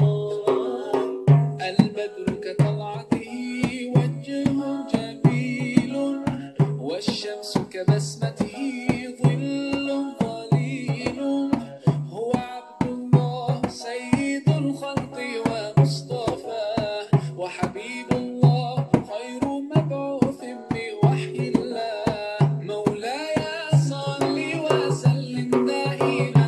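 Daff frame drum played in a steady rhythm of deep strokes and sharp slaps along with a recorded nasheed, a man singing over the backing track.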